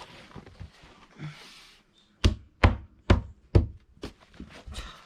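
A speaker cabinet being put back together by hand: a run of sharp knocks and taps, with four loud ones in quick succession a little over two seconds in.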